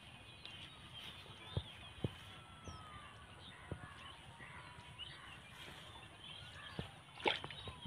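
Birds chirping faintly, many short calls overlapping, with a few sharp clicks scattered through, the loudest near the end.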